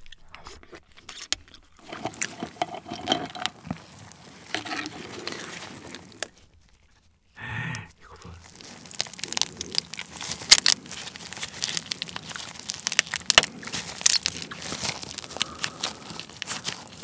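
Soy-marinated raw swimming crab being broken apart by gloved hands, close up: the shell cracks and crackles with wet tearing as meat and roe are squeezed out. There is a brief pause about halfway.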